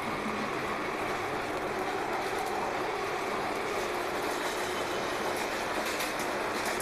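London Underground Northern Line train running through a tunnel, heard from inside the carriage: a steady rush and rumble of wheels on rails with faint steady tones over it.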